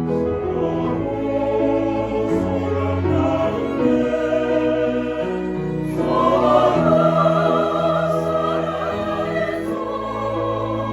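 Church choir singing a sacred choral anthem in sustained, changing chords, swelling louder about six seconds in.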